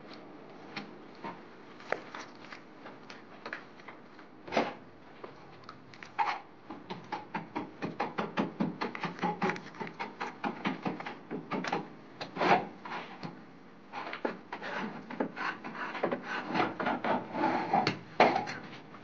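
Plasterer's steel trowel scraping gypsum plaster on the wall and in the mixing bowl: many short scrapes and taps, sparse at first and quickening into a steady run of strokes from about six seconds in.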